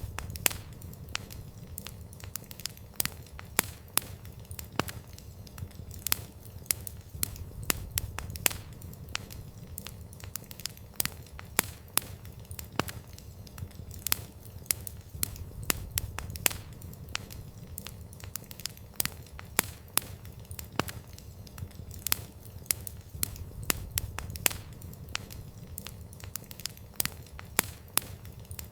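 Wood fire crackling: irregular sharp pops and snaps of burning wood, several a second, over a low steady rumble of the flames.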